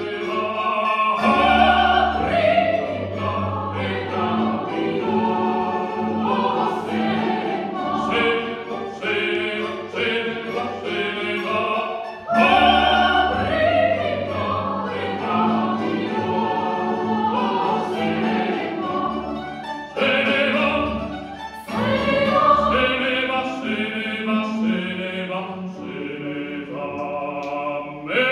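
Live classical vocal music: solo singers and a mixed choir performing with an orchestra of mandolins and guitars, sung notes with vibrato in continuous phrases with brief breaks between them.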